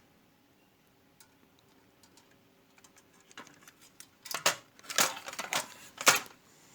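Sheet-tin toy car being handled: a few light clicks, then a louder clattering rattle of thin metal in several quick bursts for about two seconds near the end.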